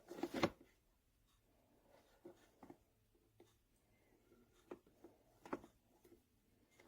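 Faint handling noises: a short cluster of light knocks and rustling at the start, then scattered single clicks and taps.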